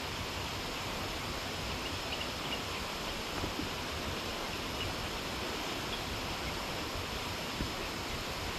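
Steady rushing of flowing stream water, even throughout, with a few faint small ticks.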